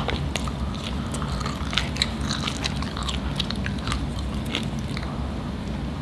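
Two people chewing Sour Patch Kids sweet popcorn close to the microphone: irregular soft crunches and small mouth clicks.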